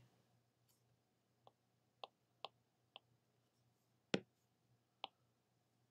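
Scattered faint clicks, about six of them, the strongest about four seconds in: a stylus tapping on a pen tablet as an equation is handwritten. Near silence between the clicks.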